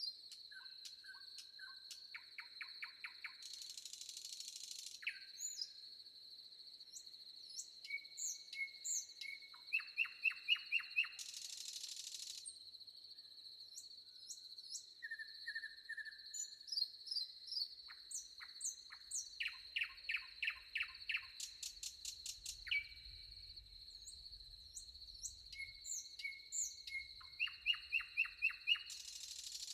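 Several songbirds calling and singing: short chirps and quick trills of rapid repeated notes, over a steady high-pitched insect drone.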